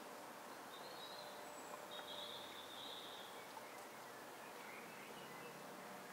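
Faint riverside outdoor ambience: a steady low hiss with a few faint, high-pitched calls, one about a second in, a longer one around two to three seconds in, and a lower one about five seconds in.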